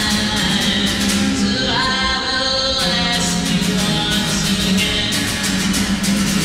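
Man singing while strumming an acoustic guitar.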